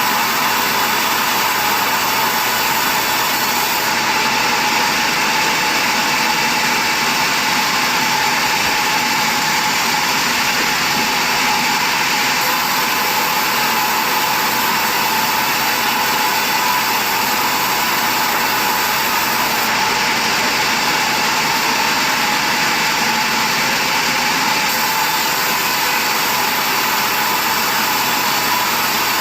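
Sawmill machinery running with a loud, steady noise that holds even throughout.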